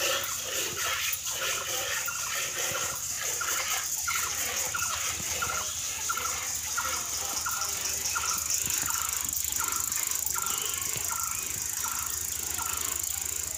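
Cow being milked by hand, milk squirting into a metal bowl in a steady rhythm of about two squirts a second. A steady high hiss runs underneath.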